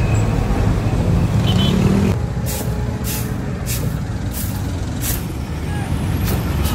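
Heavy road traffic with buses and trucks running close by, a loud steady rumble that eases a little about two seconds in. Over it, from about two seconds in, a stick broom scratches the pavement in short strokes about every half second.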